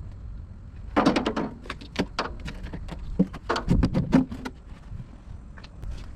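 A run of clattering knocks and clicks, like hard objects being handled and set down, from about a second in until about four and a half seconds in, over a low steady hum.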